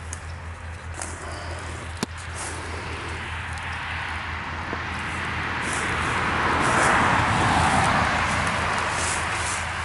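A car passing on a nearby road: tyre and road noise that swells to its loudest about seven seconds in, then fades. A single sharp click about two seconds in.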